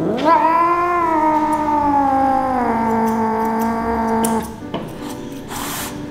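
Persian cat giving one long, drawn-out meow that rises quickly, then slowly sinks in pitch and holds steady before stopping about four and a half seconds in: a protesting yowl while being held for grooming.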